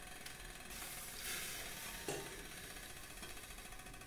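Steady hiss from a steaming stainless-steel idli pot on a gas stove, swelling for about a second, with a light metal knock about two seconds in.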